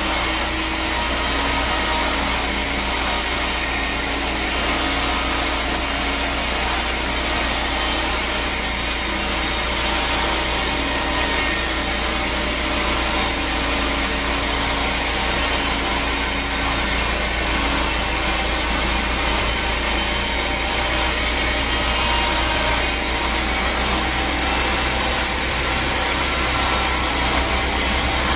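Sawmill saw cutting through a teak log: a steady sawing noise over a low, constant machine hum, with no breaks.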